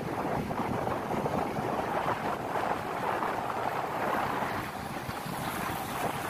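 Steady wind rushing over the microphone of a moving vehicle, over road and traffic noise.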